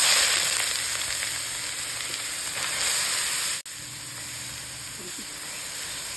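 Grated beetroot sizzling as it drops into hot ghee in a wok: a dense frying hiss that starts at once, loudest at first and easing. It breaks off for an instant about three and a half seconds in, then goes on more quietly as more beetroot is added.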